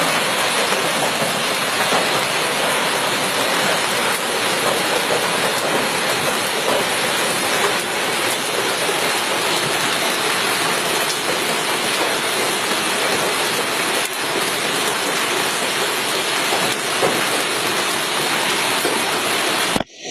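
Hailstorm: hail and heavy rain pelting down in a dense, steady din with scattered sharper impacts. It cuts off abruptly near the end.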